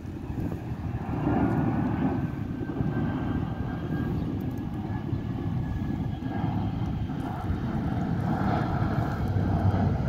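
An aircraft passing overhead: a steady low rumble that grows louder about a second in, with a faint whine slowly falling in pitch.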